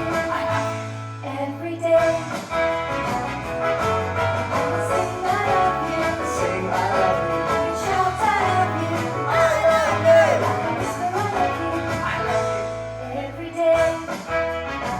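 Music: a song with singing over instrumental backing and a steady beat.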